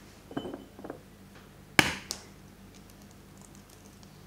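An egg lifted out of a ceramic ramekin with a light clatter, then one sharp crack a little under two seconds in as the shell is rapped against a hard edge to break it, followed by a smaller tap.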